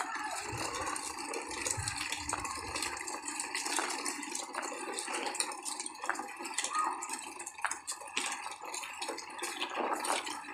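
A train of plastic toy vehicles towed on a strap over rough asphalt, their wheels and bodies rattling steadily with many small clicks.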